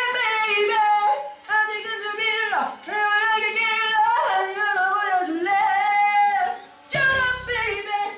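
A man singing in a high belting voice, holding notes of about a second each with short breaks between them. About seven seconds in the sound turns suddenly harsher and noisier.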